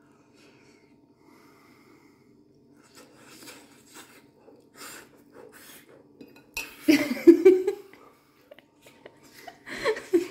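Fork clinking on a plate, then a man breathing hard and making muffled voiced sounds through a mouthful of baked potato that is too hot. These are loudest about seven seconds in and come again near the end.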